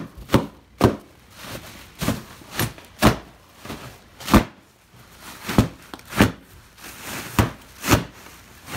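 Bubble wrap popping under a man's feet as he treads on it inside a large cardboard box: about a dozen sharp, irregular pops, some coming in quick pairs.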